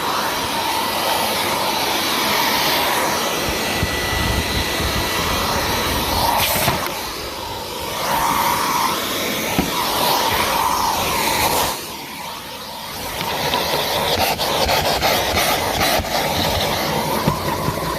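Numatic Henry Plus HVR200P tub vacuum cleaner running while vacuuming a car, a steady rushing suction noise with a faint whine. Its sound drops and changes twice, at about seven and twelve seconds in, as the nozzle's airflow changes.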